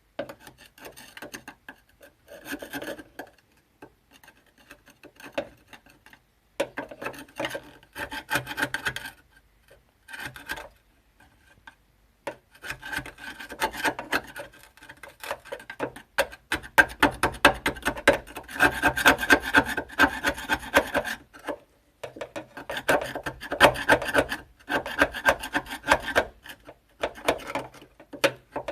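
Rusty steel car bodywork being abraded by hand, sanded or scraped, in bouts of rapid back-and-forth strokes with short pauses between them.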